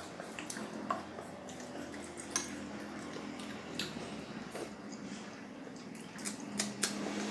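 Close-up eating sounds of someone chewing spicy instant noodles: scattered small wet clicks and squishes of the mouth, over a low steady hum.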